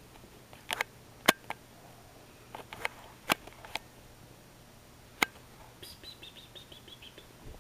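A cat with a foil toy on a hardwood floor: scattered sharp clicks and taps, then near the end a quick run of short, high chirps, about eight a second.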